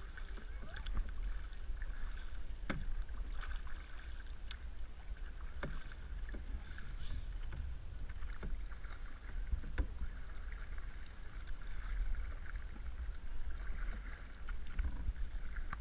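Canoe being paddled: paddle blades dipping and splashing in the water, with scattered sharp knocks of paddle against the hull every second or two, over a steady low rumble.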